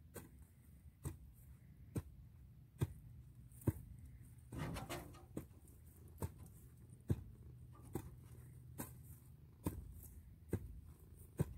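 Faint, evenly spaced clicks, a little more than one a second, with a brief scraping rustle about halfway through.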